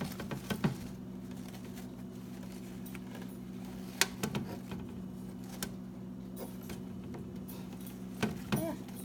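Scattered light clicks and taps of black plastic ventilated reptile containers being handled, the sharpest about four seconds in and a few more near the end, over a steady low hum.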